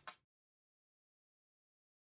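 Dead silence: the soundtrack cuts to digital silence just after the tail of a spoken word at the very start.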